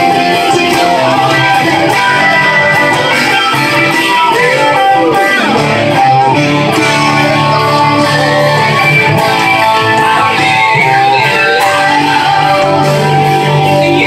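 Jackson V-shaped electric guitar playing a slow rock song: sustained chords and single notes, with one note bent up and back down about five seconds in.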